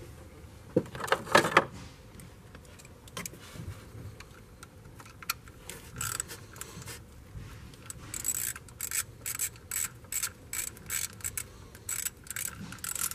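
Hand ratchet wrench clicking in short repeated strokes, two to three a second, as the idler pulley's bolts are run down. There is a brief, louder metal clatter about a second in.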